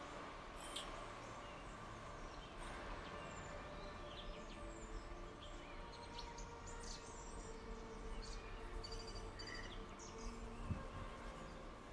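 Faint steady background noise with scattered short, high chirps, and a couple of soft clicks near the end as plant material is handled.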